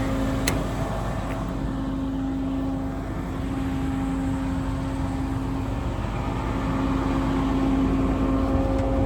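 Diesel truck engine running steadily at idle, a low rumble with a steady hum that eases slightly and then builds back a little.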